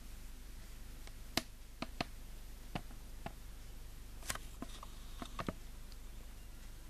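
A few light, irregular clicks and taps, about nine of them, over a faint steady low hum.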